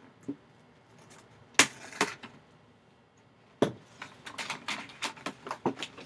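Cardboard box handled and opened by hand: a few sharp knocks and taps, then a quick irregular run of clicks and crackles from about four seconds in as the box's seal and flaps are worked open.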